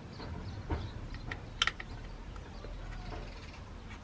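A few light clicks and taps of a small T6 Torx driver on the screws holding the circuit board of a TomTom Rider 400 sat nav as they are loosened, with the sharpest click about one and a half seconds in.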